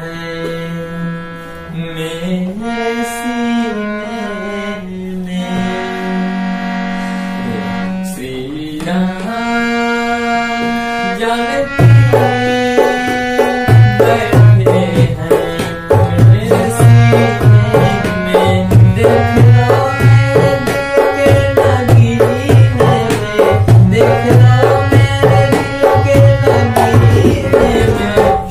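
Harmonium playing sustained reed chords in a devotional song. About twelve seconds in, a dholak comes in with quick, rhythmic hand strokes and deep bass thumps.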